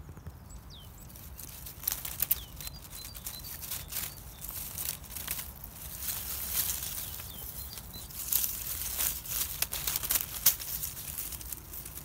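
Dry fallen oak leaves rustling and crackling in irregular bursts, close by, over a low steady wind rumble, with a few faint short bird chirps.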